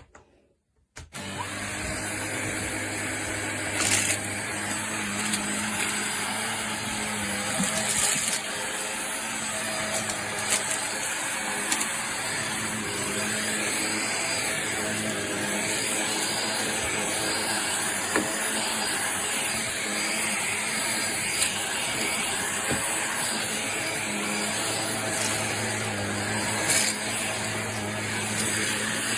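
Kenmore DS1020 cordless stick vacuum switched on about a second in and running steadily, a hum under an airy hiss. A few short sharp clicks break through now and then.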